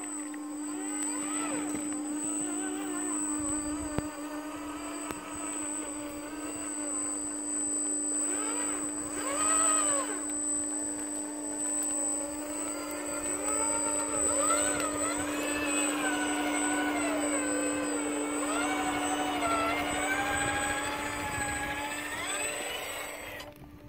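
Electric motor and gear whine of an RC rock crawler with a three-speed transmission, rising and falling in pitch as the throttle is worked while it climbs rocks, over a steady hum. It stops near the end.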